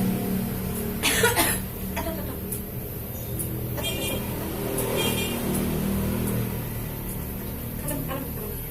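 A person coughs once, harshly, about a second in, over a steady low hum.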